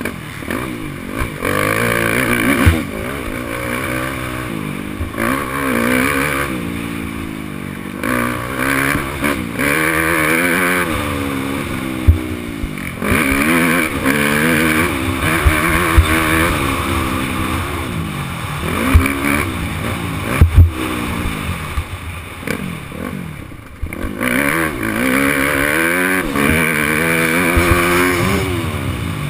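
Yamaha YZ250F four-stroke single-cylinder motocross engine, ridden hard: revving up and dropping off again and again through the corners and straights. Wind rushes over the helmet camera, and a few sharp knocks sound over the bumps.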